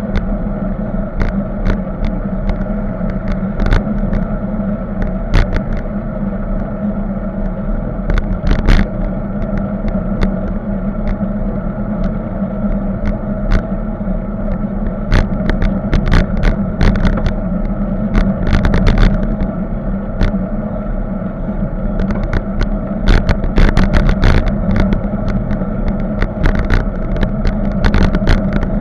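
Riding noise picked up by a camera mounted on a moving bicycle: a steady hum of wind and tyre/road vibration, with frequent sharp clicks and knocks as the mount rattles over bumps in the road.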